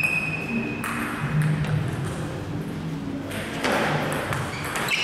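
Table tennis play: a serve and rally start about three seconds in, with sharp clicks of the celluloid ball off the bats and the table. A high steady tone sounds for about the first second.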